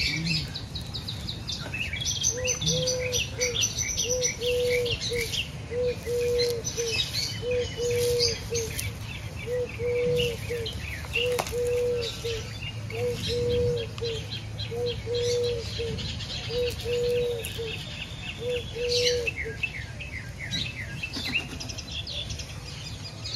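Birds chirping and twittering throughout. A lower note repeats steadily about once a second from a couple of seconds in until a few seconds before the end.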